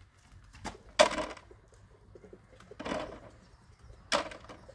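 Loose gravel crunching and clattering in three short bursts, the first the loudest.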